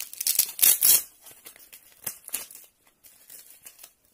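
Black fabric hand strap of a dive light being handled and unfolded: a loud rasping rustle in the first second, then lighter rustles and small clicks.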